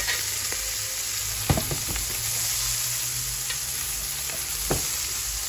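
Pieces of hare meat sizzling with a steady hiss as they brown in a hot frying pan. A metal fork turning the meat clicks against the pan a few times, most sharply about one and a half seconds in.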